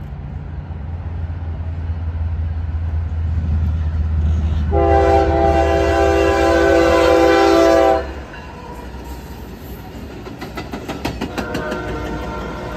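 Diesel freight locomotive rumbling louder as it approaches, then sounding its horn in one long chord of several notes for about three seconds before it cuts off. After that come rapid clicks of train wheels over rail joints.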